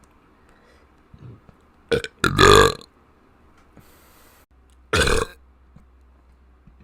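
A person burping loudly. A short burp about two seconds in runs straight into a longer one, then another short burp comes about five seconds in.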